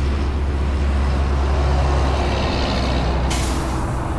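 Road traffic: a vehicle passing, heard as a steady low rumble with a rush of noise that swells about two seconds in. A hiss sets in suddenly about three seconds in.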